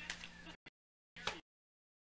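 Near silence: a faint fading room tone with a low hum drops out to dead silence within the first half second. It is broken only by a couple of brief, faint blips about a second in.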